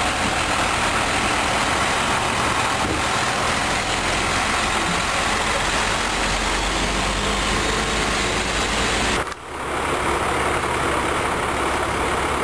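Truck engines idling steadily, with a brief drop about nine seconds in before the same sound resumes.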